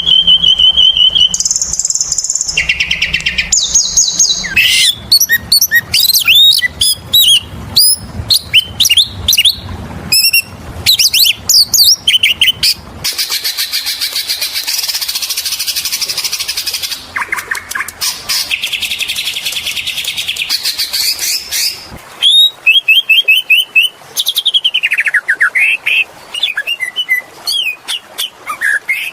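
Oriental magpie-robin (kacer) singing a long, varied song of clear whistles, slurred glides and quick trills, with two long stretches of fast buzzy rattling in the middle.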